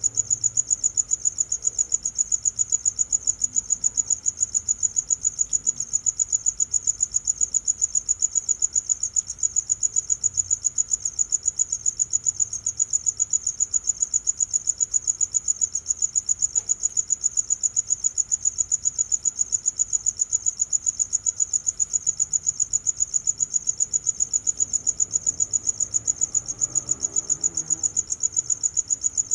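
Cricket chirping: a high-pitched, fast, evenly pulsed chirp that goes on unbroken.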